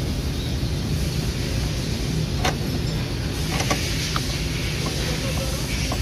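A steady low rumble runs throughout, with a few sharp metallic clicks about two and a half seconds and four seconds in as pliers work a car battery terminal.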